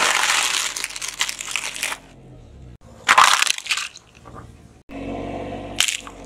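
Car tyre rolling over a plastic bag of crunchy corn snacks, a dense crunching and crackling that lasts about two seconds. Shorter loud crunches follow a little after three seconds in and again near the end, as other objects, among them a plastic toy, are crushed under the tyre.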